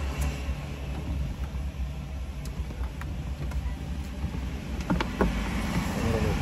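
Steady low rumble of a car heard from inside the cabin, with a couple of small sharp clicks about five seconds in.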